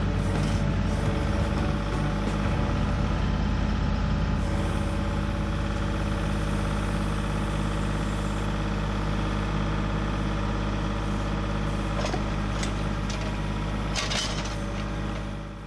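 Kubota compact tractor's diesel engine running steadily while the backhoe is worked, with a few sharp knocks near the end as a big rock is set down onto the rock pile.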